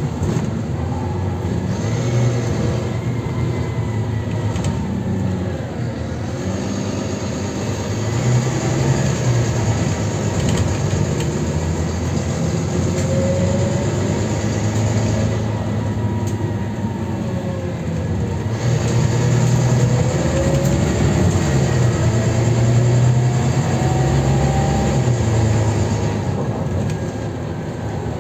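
Volvo B9TL double-decker bus's six-cylinder diesel engine and driveline heard from inside the passenger saloon while the bus is under way. The engine note rises and falls as the bus accelerates and eases off, with a whine that glides up and down, over steady road noise.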